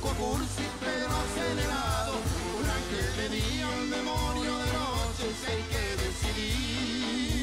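A live band plays a song with a strong, steady bass beat, held instrumental notes and singing.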